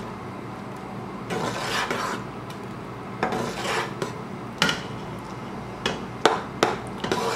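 A cooking spoon stirring thick white sauce with chicken meatballs in a pot, scraping and swishing against the pot's sides. A few sharp knocks of the spoon on the pot come in the second half.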